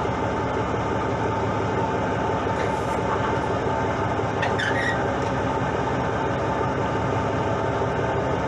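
Fishing boat's engine running steadily, a constant drone.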